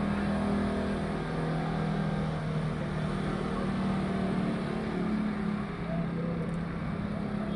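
Motorcycle engine running steadily, a low hum whose pitch drops slightly about three quarters of the way through.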